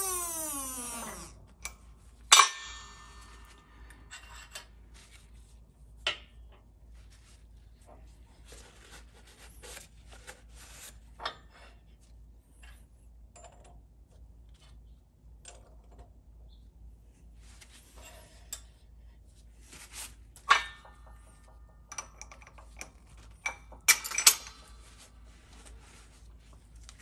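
Steel tools and bushings being handled on an arbor press's steel plate while a bushing driver is set on a transmission gear: a falling ring that fades within the first second, then scattered sharp metal clinks, loudest about two seconds in and again near the end.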